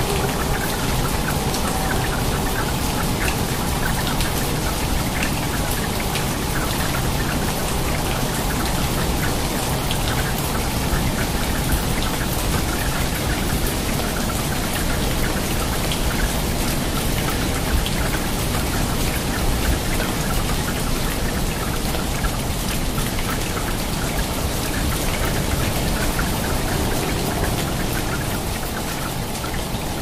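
Steady rain, with dense drops splashing onto a water surface in an even, continuous patter.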